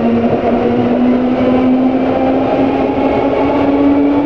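London Underground 1967 Stock train heard from inside the carriage, its traction motors whining with a steadily rising pitch as it accelerates, over the continuous rumble and hiss of the train running on the track.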